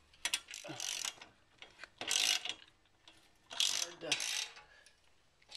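Socket ratchet clicking in three bursts of strokes as a 9/16-inch bolt holding a steel TV wall-mount bracket is tightened into brick.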